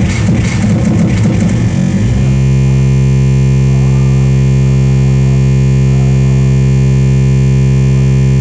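Loud industrial electronic music. The rhythmic beat drops out about two seconds in, leaving a steady, distorted drone.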